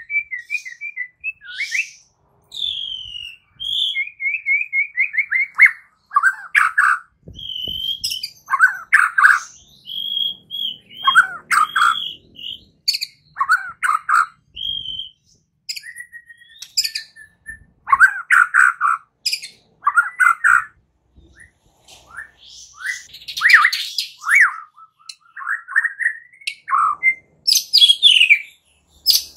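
White-rumped shama (murai batu) singing: a varied string of short phrases of clear whistles and quick runs of repeated notes, separated by brief pauses.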